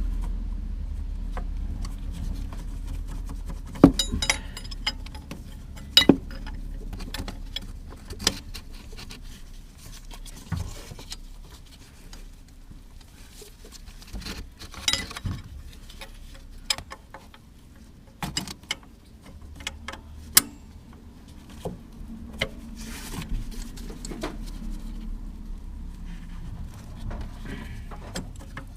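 Hand tools and metal parts clinking and knocking at irregular intervals, a few sharper knocks standing out, over a faint low hum.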